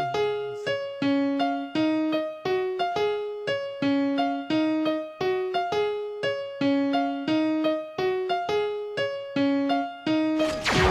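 Keyboard playing a repeating melodic figure of single notes, each dying away, in the song's backing track. A sudden loud rush of noise cuts in just before the end.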